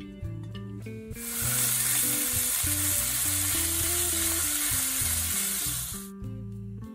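Raw ground beef sizzling as it fries in hot olive oil in a stainless steel skillet; the sizzle starts suddenly about a second in and stops abruptly about a second before the end. Acoustic guitar background music plays underneath.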